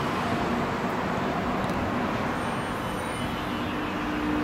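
Steady road traffic noise, with a steady hum joining in over the last couple of seconds.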